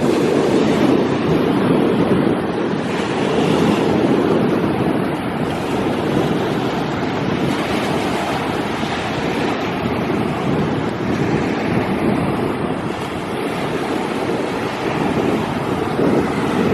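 Steady rush of sea surf mixed with wind buffeting the microphone.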